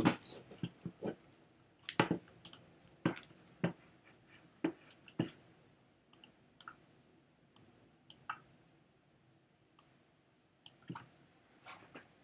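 About twenty light, sharp clicks and taps at irregular intervals, some in quick pairs, with gaps of up to a second and a half between them.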